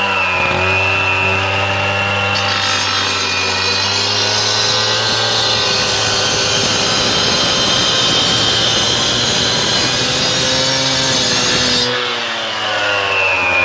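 Two-stroke petrol disc cutter (cut-off saw) with a 300 mm diamond blade running at high revs, wet-cutting a curved scribe line into a hard limestone paving slab. The grinding of the blade in the stone comes in about two seconds in and holds steady. About twelve seconds in, the cut stops and the engine's pitch drops.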